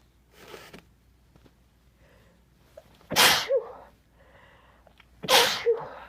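A person sneezing twice, about two seconds apart. Each sneeze is a loud, sudden burst with a short voiced tail after it. A fainter breathy sound comes near the start.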